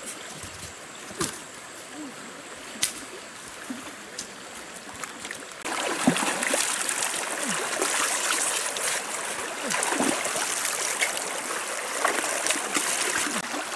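Fast-flowing river water rushing, with a few sharp clicks or knocks at first. A little before halfway the rushing jumps much louder and fuller, with splashing and gurgling as hands work in the shallow current.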